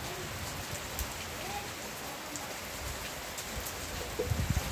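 Steady rain falling, with scattered ticks of individual drops and a brief low thump near the end.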